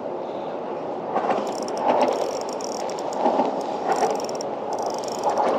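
Spinning fishing reel being worked, with a fast fine ticking from about a second in, over a steady low rushing noise.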